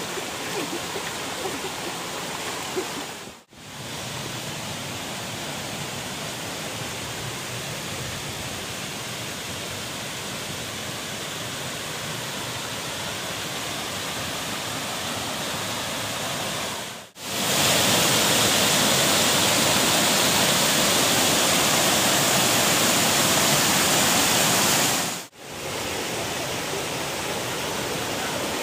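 Rushing water of a small jungle waterfall and rocky stream, a steady noise that cuts out briefly three times and is louder and hissier for several seconds past the middle.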